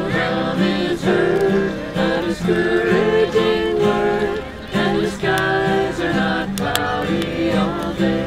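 Music: voices singing a melody over guitar, with a steady beat about twice a second.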